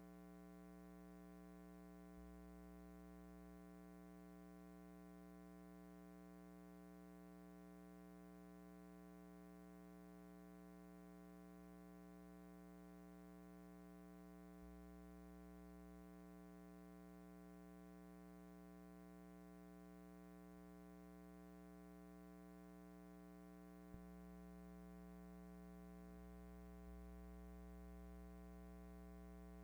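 Near silence: a silent film's soundtrack carrying only a faint, steady electrical hum, with a few tiny clicks.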